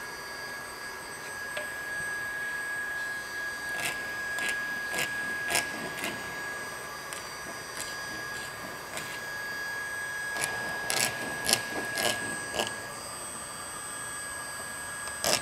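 A hand scraper scraping out the gouge in a plastic boat hull in short strokes: a group of about five strokes around four seconds in, another quick group a few seconds before the end, and two more right at the end. The strokes are clearing rock and other debris out of the damage before repair. Under them runs a steady faint high tone that stops about two seconds before the end.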